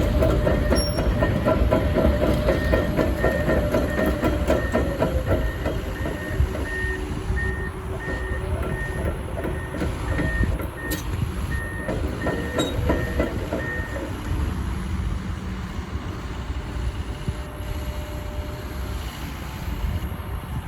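Komatsu PC170LC-11 hydraulic excavator running, with a travel alarm beeping in a steady repeating pattern over the engine's rumble. The beeping stops about two thirds of the way through and the engine runs on.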